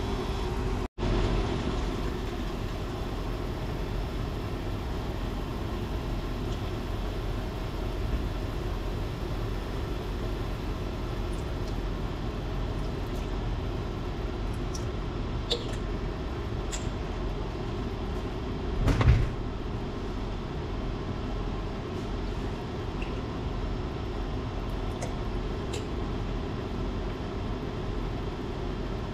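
Sauce simmering steadily in a stainless steel frying pan on an induction cooktop, with a low hum under it, a few light clicks and one louder knock about two-thirds of the way through.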